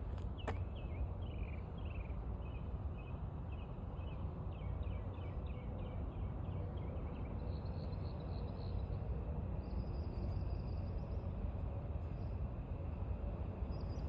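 A songbird giving a quick series of short, falling chirps over the first half, then two high buzzing trills, all over a steady low rumble.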